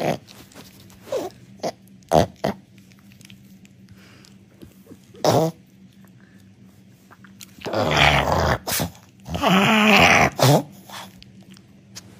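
French bulldog grumbling and moaning in short bursts, then two longer, louder, snuffly groans about eight and ten seconds in.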